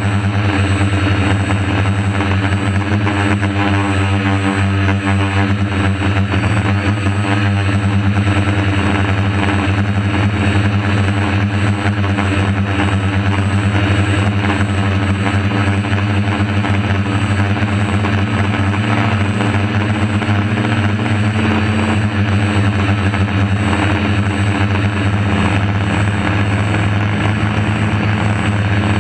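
DJI F450 Flame Wheel quadcopter's four brushless motors and propellers buzzing steadily in a hover, heard from the GoPro mounted on the drone's frame. The pitch wavers slightly a few seconds in.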